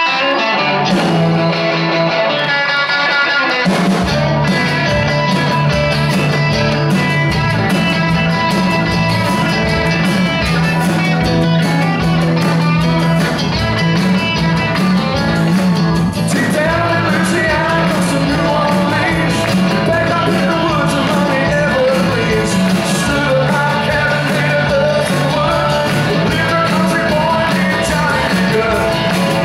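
Live rock band playing on stage: a lone electric guitar at first, then bass and drums come in about four seconds in, and a male singer's voice joins about halfway through.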